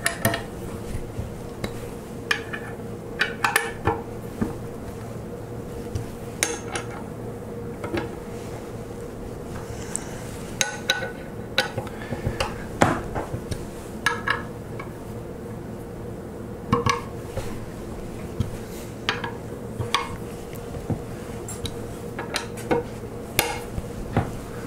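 Allen wrench working 1/2-13 socket head cap screws down into a steel vise mounting plate: irregular metallic clicks and taps as the key is seated and turned, over a steady low hum.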